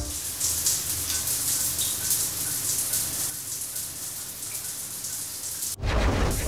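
Shower running: water spraying in a steady hiss, with faint high pips about twice a second. Near the end the spray breaks off for about half a second of louder, fuller rushing noise.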